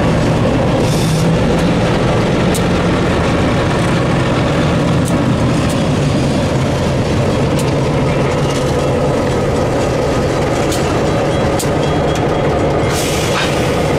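Two end-cab diesel switcher locomotives passing at low speed, their engines running with a steady, loud drone and scattered sharp clicks.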